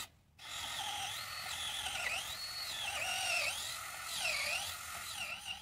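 Handheld power drill running against a wooden gate post, its motor whine climbing to full speed and sagging again several times as the trigger is worked and the bit meets the wood.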